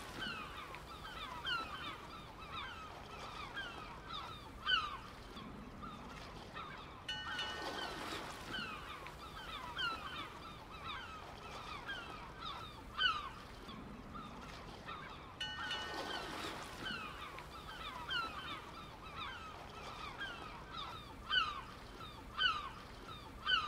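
Faint bird calls: many short, falling cries, some louder than others, in an ambience that repeats about every eight seconds.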